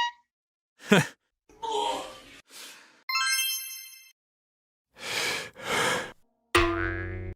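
A run of short, separate cartoon sound effects with brief silences between them: a quick downward swoop, a breathy sigh-like noise, a bright ringing ding about three seconds in, two noisy swishes, and a low buzzing tone near the end.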